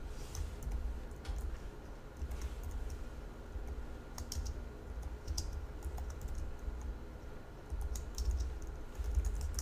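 Typing on a computer keyboard: irregular key clicks over a low background rumble.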